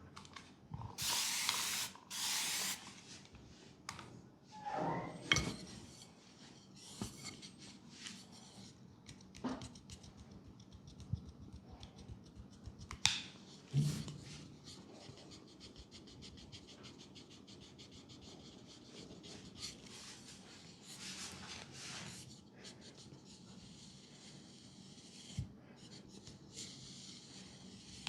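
Leg massage sounds: hands and a massage tool rubbing and swishing on skin, with scattered clicks and knocks, then a long run of fast, light ticks.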